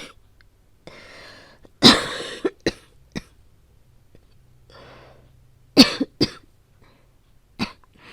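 A woman coughing in fits, acting out a feverish cold with asthma. A drawn-in breath is followed by one loud cough and a few smaller ones. A second breath and cough fit comes about halfway through, and a single cough near the end.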